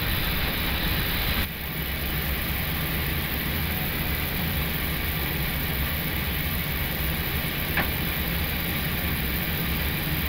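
Steady flight-deck hum of an Airbus A321 with its engines at idle, rolling out on the runway and then, after a cut about a second and a half in, taxiing slowly into the gate. There is one brief tick about eight seconds in.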